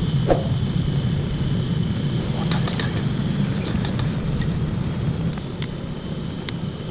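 Portable gas camping burner running at full flame with a steady low rumble, as wooden chopsticks are held in it and catch fire; a few light clicks of the sticks being handled.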